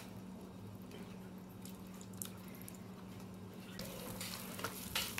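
Hands squeezing and kneading tamale masa with red chile sauce, wet squelching and squishing that grows denser and louder in the last second or so.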